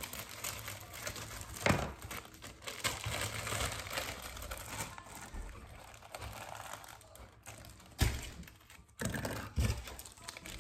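Clear plastic zip-top bags crinkling and rustling as they are handled and filled with slime, with a few sharp knocks, the loudest near the end.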